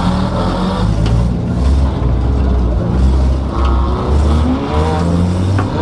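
Car engine and road noise heard from inside the cabin, the engine note stepping up and down as the car is driven.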